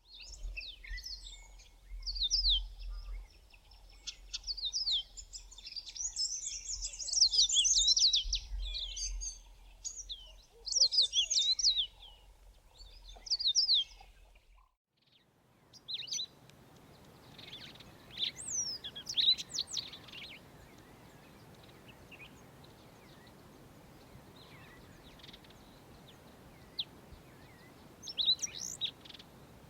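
Yellow-fronted canary singing: rapid phrases of high, quickly sliding notes in bursts of a few seconds. About halfway the song breaks off briefly, then returns as sparser, fainter phrases over a steady background hiss.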